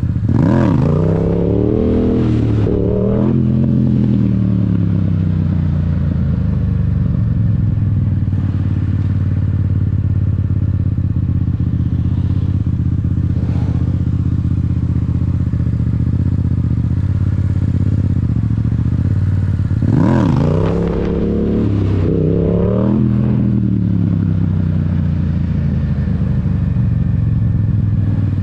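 Yamaha R7's parallel-twin engine running, revved up and back down in a couple of quick sweeps near the start and again about twenty seconds in, holding a steady note in between.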